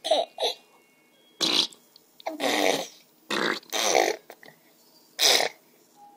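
A baby blowing raspberries with his lips, about six short bursts roughly a second apart.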